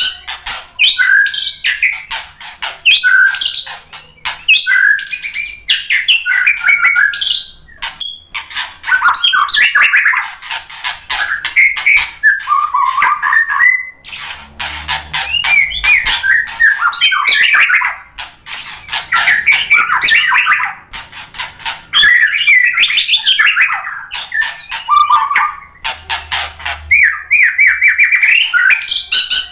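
White-rumped shama (murai batu) singing loudly: fast, varied phrases of whistles mixed with rapid rattling notes, broken by a few short pauses.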